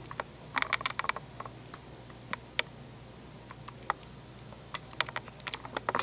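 Light clicks and taps of handling, in a quick cluster about half a second in, a few single ones in the middle and another cluster near the end, over a faint steady low hum.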